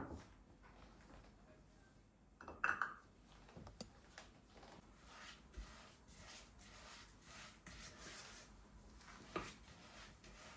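Faint handling sounds with a few light taps and knocks, one brief clink with a short ring about two and a half seconds in.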